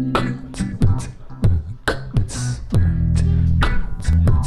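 Live band music: a beatboxer making the drum beat into a microphone, with electric bass guitar and acoustic guitar playing along.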